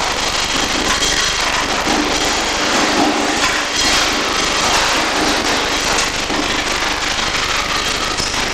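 Welding arc crackling steadily and without a break.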